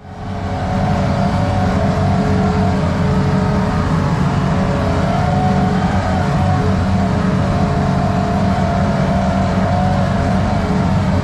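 An engine running steadily under a constant load, with a slightly wavering whine over a deep, even rumble.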